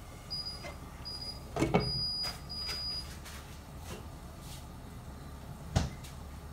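A glass pot lid clattering down onto a metal wok, the loudest knock about two seconds in, followed by a second sharp knock near the end.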